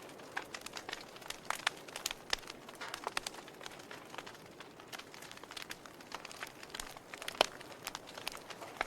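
Wood fire burning in a fireplace: irregular crackles and sharp pops over a soft steady hiss, with one louder pop near the end.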